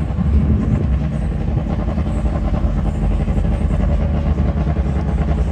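A vehicle engine running steadily close by, a loud, even low rumble with no revving.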